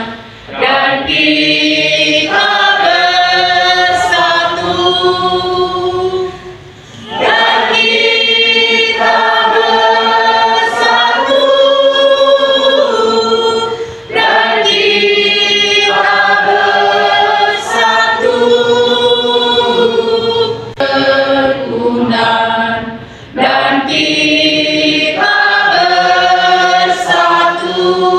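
A large assembly of people singing a song together, in long held phrases several seconds apiece with brief breaks between lines.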